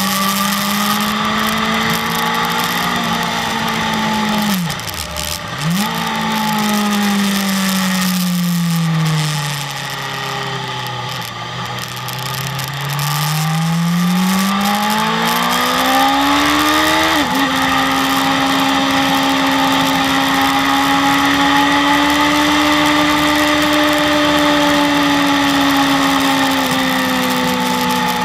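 BMW S1000RR sport bike's inline-four engine, heard from on board while riding. The revs dip sharply and come back about five seconds in, fall away slowly and climb again, step at a gear change, then hold steady at a high pitch under a constant hiss.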